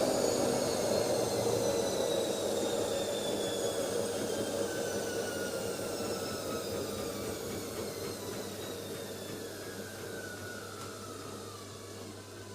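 Automatic washing machine spinning down at the end of its spin cycle. A motor-and-drum whine falls steadily in pitch while the whole sound fades away.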